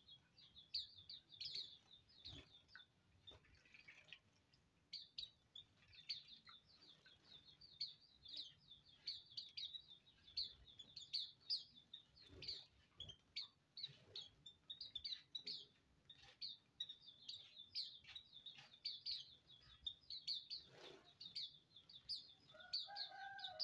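Caged white-eyes (pleci auriventer) twittering: quick, thin, high chirps almost without pause.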